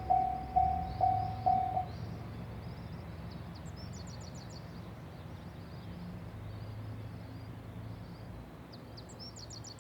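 Electronic warning bell of a Japanese Type-3 level crossing (warning signal, no barriers) ringing at about two strikes a second, then stopping about two seconds in. Birds chirp afterwards over a low rumble.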